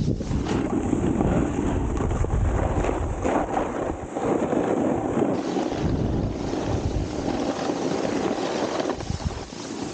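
Snowboard sliding and scraping over icy, hard-packed snow, with wind buffeting the microphone in a steady rush.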